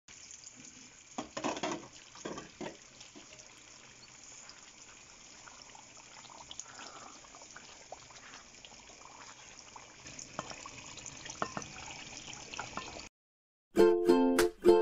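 Masala gravy sizzling and bubbling in a pan, a steady crackling hiss with a few louder clatters in the first couple of seconds and small scrapes and knocks as it is stirred. The sound cuts off about 13 seconds in, and ukulele music starts shortly after.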